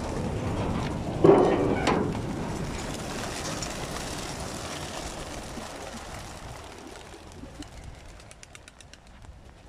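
A flock of young racing pigeons bursts out of their transport crates and takes off in a rush of flapping wings, with a sudden loud burst a little over a second in. The sound then fades steadily as the flock climbs away.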